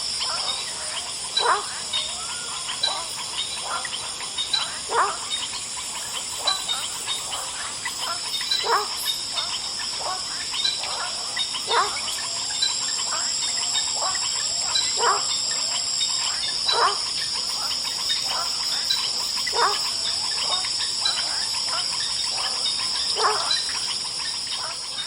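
Swamp chorus at dusk: a steady high insect drone under a regular high chirp about twice a second, with frogs giving short single calls every second or two.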